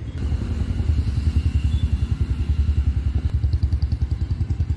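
An engine running steadily, a loud low rumble with a fast, even throb.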